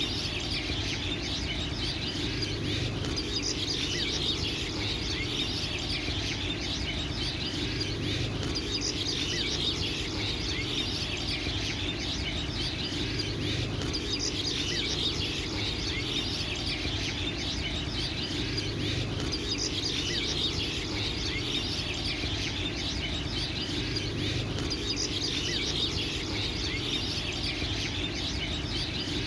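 Many birds chirping and twittering without pause in a dense chorus, over a low steady background. The whole sound repeats about every five and a half seconds, like a looped nature recording.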